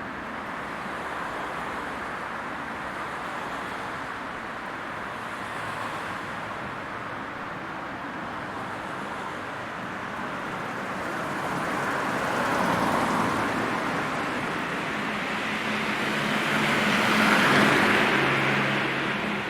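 Road traffic noise: a steady wash of tyres and engines, with one vehicle passing about twelve seconds in and a louder one passing near the end, its engine hum showing as it goes by.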